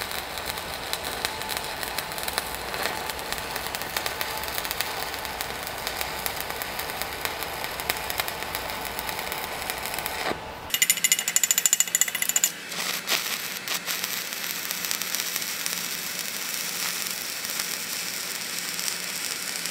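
Stick-welding arc from a 3/32-inch 7018 electrode crackling steadily as a fillet weld is run uphill on a steel I-beam. About ten seconds in the sound changes, with a short, louder, sputtering stretch before the steady crackle returns.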